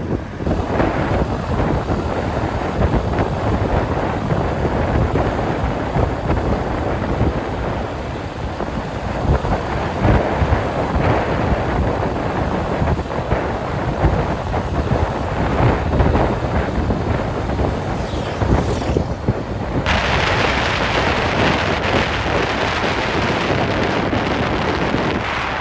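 Wind buffeting the microphone during a motorbike ride: a dense, unbroken rumble and rush. About 20 s in it turns suddenly hissier.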